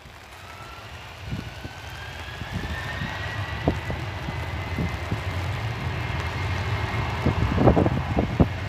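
Boeing 737-800's CFM56-7B turbofan engines spooling up to takeoff thrust: a whine that rises in pitch over the first few seconds and then holds, over a low rumble that grows steadily louder. Wind gusts buffet the microphone, most strongly near the end.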